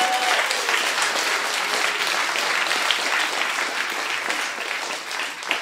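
Audience applauding, a dense patter of many hands clapping, easing off near the end.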